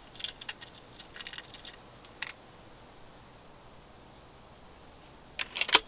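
B3 underlever spring air rifle being cocked and reloaded: a few light metallic clicks in the first couple of seconds, a lone click a little later, then a quick run of sharp, loud metal clicks near the end as the lever and breech are worked.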